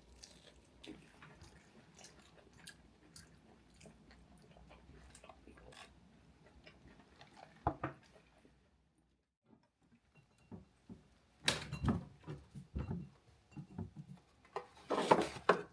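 Eating sounds: small clicks and crinkles of food being picked up, handled and chewed. About two-thirds of the way in they stop briefly, and near the end there are louder bursts of crackling.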